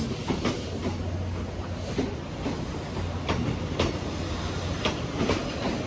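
Vietnam Railways passenger coaches rolling past along a platform: a steady low rumble with the wheels clacking over rail joints, the clacks coming in pairs about every second and a half.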